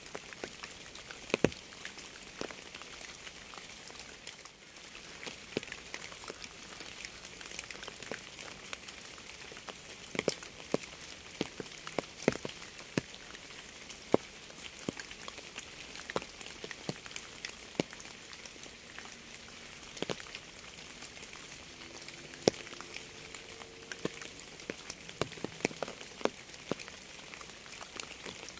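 Steady rain hissing, with irregular sharp drops striking a surface close by.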